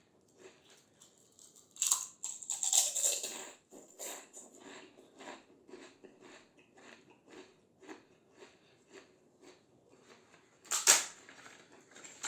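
Close-miked eating of a crispy fried snack (papad/fryums): loud crunching bites about two seconds in and near the end, with steady crunchy chewing, about two chews a second, in between.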